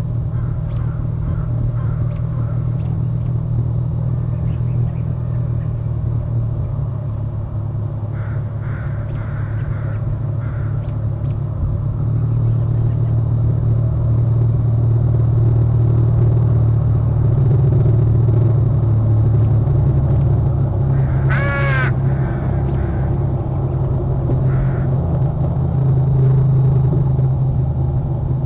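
Steady low rumble on an outdoor nest-cam microphone, growing a little louder partway through, with one short harsh bird call, like a crow's caw, about three quarters of the way in.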